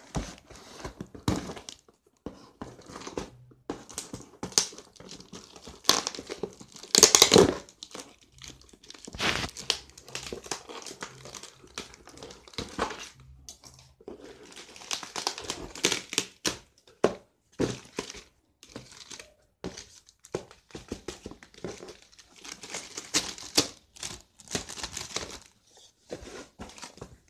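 Plastic courier mailer bag crinkling and tearing as it is pulled open by hand, in irregular bursts of rustling, the loudest about seven seconds in.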